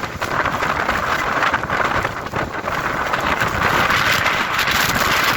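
Hurricane-force wind blowing hard across the microphone: a loud, steady rushing noise with a constant crackle.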